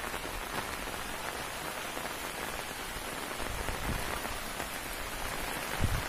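Steady rain falling, an even hiss of drops on wet ground.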